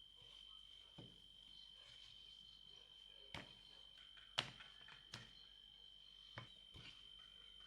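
Quiet kitchen handling: about six light knocks and taps, the loudest about four and a half seconds in, over a faint steady high-pitched trill like a cricket.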